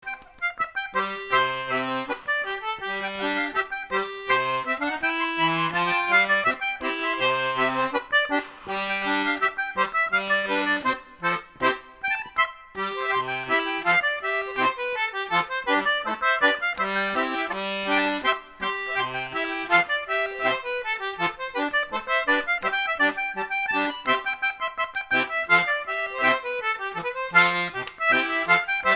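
JAY Anglo concertina playing a tune, with a melody on the reeds over held bass chords.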